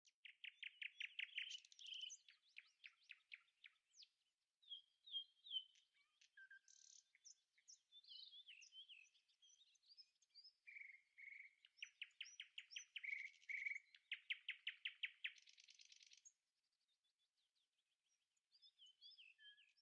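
Songbirds singing: fast trills of rapidly repeated high notes mixed with varied chirps and short whistled phrases, briefly pausing about four seconds in and going faint near the end before a last short phrase.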